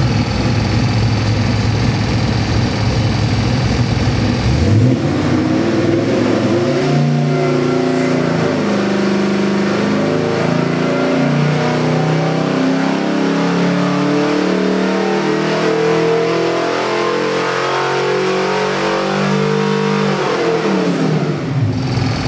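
427 cubic-inch Ford stroker V8, built on a 351 Windsor block, running on an engine dyno: it idles, blips once, then pulls through a long, slowly rising RPM sweep under dyno load and drops back to idle near the end.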